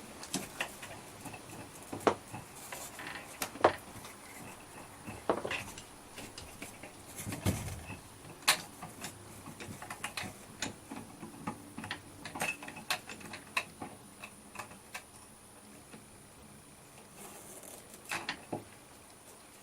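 Irregular metallic clicks, taps and scrapes of screws being driven into an RV door lock's striker plate, with no motor running.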